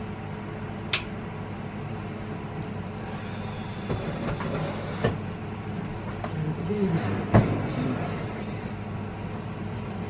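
A few knocks and clicks of a microwave oven being set in place on a kitchen counter and its control panel handled. The loudest knock comes a little past seven seconds in.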